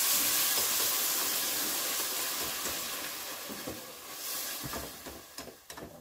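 Tomato sauce sizzling in a hot pot of fried sausage and onion, the hiss slowly dying down as the sauce cools the pan. Near the end a spoon stirring the sauce scrapes and knocks against the pot a few times.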